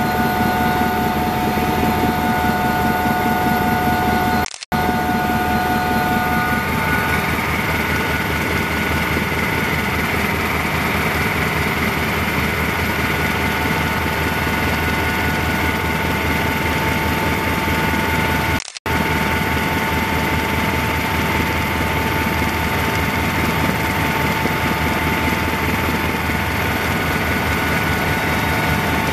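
Cabin noise of a Helijet twin-turbine helicopter in flight: a loud, steady turbine and rotor drone with several high steady whining tones over it. The sound cuts out for a split second twice, about five and nineteen seconds in.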